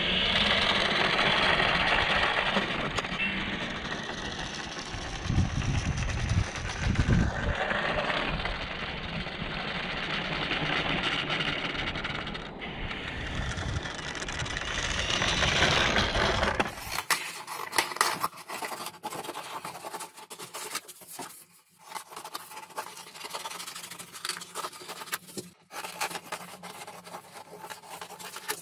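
Electric motor and propeller of a small foam RC warbird running steadily as the model taxis off down the road. After about 17 seconds it gives way to scissors snipping through paper plan sheets, a quick series of sharp cuts.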